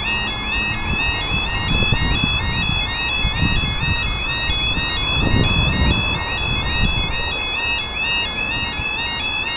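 Level crossing's electronic audible warning alarm sounding continuously: a loud, steady two-pitch warble that alternates several times a second. The crossing has failed and is stuck on with no train coming; the speaker suspects the track circuit is confused after the pump cart went through.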